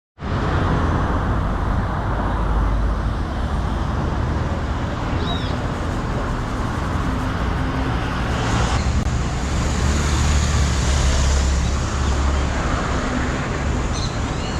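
Road traffic noise: a steady rumble of passing vehicles, with a brief high chirp about five seconds in and another near the end.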